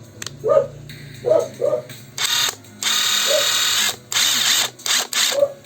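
Makita DTS141 cordless impact driver run free in reverse with repeated trigger pulls, revved like a motorcycle. It makes a high whir in several bursts from about two seconds in, the longest about a second.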